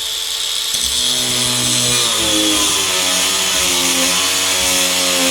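DeWalt cordless flathead angle grinder cutting through 3/4-inch steel plate with an abrasive cutoff wheel. It makes a loud, steady, harsh grinding hiss, and from about two seconds in the motor's pitch sags and wavers as it bogs under the load.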